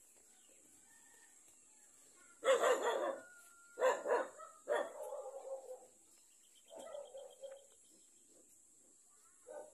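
A dog barking in about five separate bouts over several seconds. The loudest barks come near the middle, with a drawn-out call around the halfway point.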